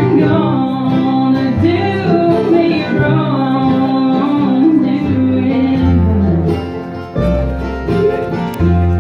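Live bluegrass band playing: a woman singing lead over strummed acoustic guitars and upright bass. Over the last few seconds the playing thins to a few separate chords, each left to ring.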